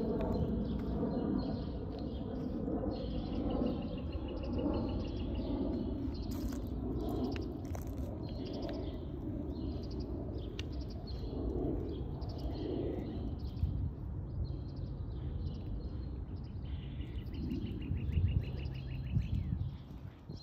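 Several songbirds chirping, with a rapid trill a few seconds in and another near the end, over a steady low hum of road traffic.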